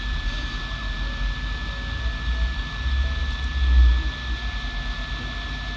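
Hot air heat gun blowing steadily over flux-coated VRAM chips, with a constant high whine over its rushing air. A low rumble swells briefly about three seconds in.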